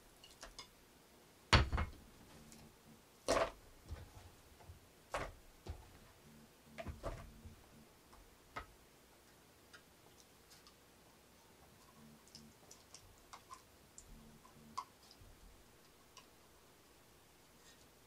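Food pieces tipped from dishes into a plastic bowl: a few separate soft knocks and taps a second or two apart, thinning out to faint scattered clicks in the second half.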